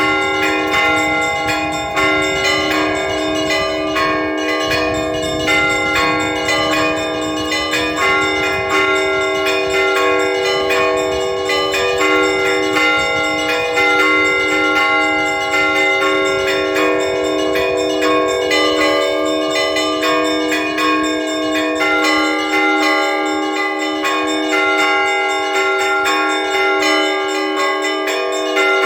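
Russian Orthodox church bells rung by hand by a bell-ringer: a continuous peal of rapid strikes on several bells, the lower bells' tones ringing on under the quick strokes of the smaller ones.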